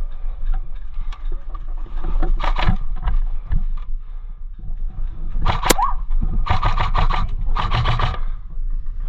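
Airsoft player on the move with the microphone rubbing and scuffing on gear, with two short bursts of rapid airsoft gunfire in the second half.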